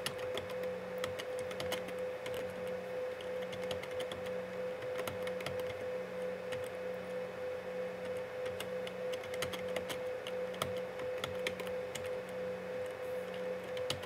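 Typing on a computer keyboard: irregular keystroke clicks, several a second, over a steady hum.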